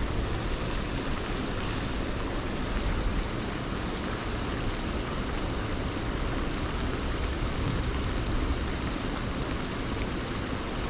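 Steady heavy rain falling, a constant hiss with a low rumble underneath.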